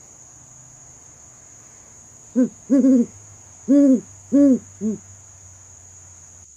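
An owl hooting: a run of five low hoots in about two and a half seconds, the second one doubled and the last one short. Crickets trill steadily behind it.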